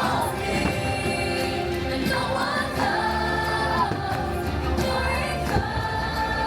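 Fireworks show soundtrack: music with a choir singing sustained notes.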